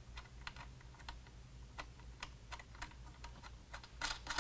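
Faint, irregular light clicks and taps of metal hardware as metric nuts are spun on finger-tight over the threaded studs holding a running-board bracket, with a quick cluster of louder clicks near the end.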